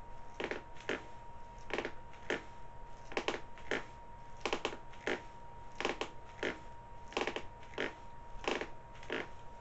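Forefeet tapping down on a hardwood floor during wall tibialis raises (shin ups): each rep gives a cluster of two or three light slaps as the feet drop back, about every second and a half.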